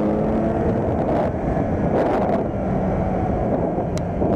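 Kawasaki Z900's 948 cc inline-four engine running at speed, with wind rushing over the microphone. A brief click near the end.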